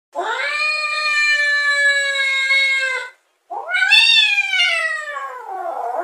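Angry domestic cat yowling in two long drawn-out calls. The first is held at a steady pitch for about three seconds; the second rises, then slides slowly down.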